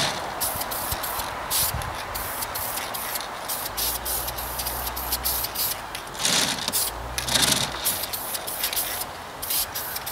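Aerosol spray-paint can hissing in short passes as a coat of paint goes onto a tractor fan, with two stronger bursts past the middle.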